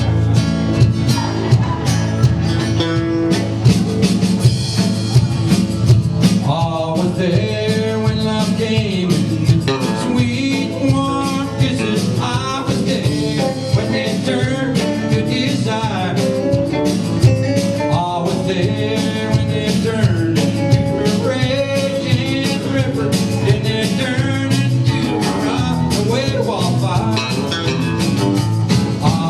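A band playing a song with a steady beat; a singing voice comes in about four seconds in.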